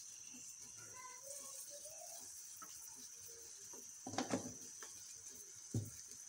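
Quiet kitchen with a faint steady hiss and two short knocks, about four and six seconds in.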